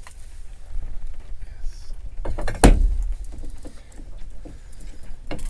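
A single loud thump on a small fishing boat about two and a half seconds in, with a few fainter knocks around it, while a freshly landed ling is unhooked; a low rumble runs underneath.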